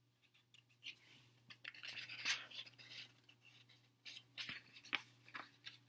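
Faint rustling and scraping of a picture book's paper pages being handled and turned, in irregular short bursts, over a steady low hum.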